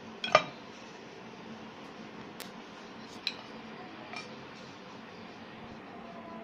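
Light knocks and taps on a metal chapati rolling board as dough and rolling pin are handled on it: one sharp knock about a third of a second in, then a few faint clicks, over a steady faint hum.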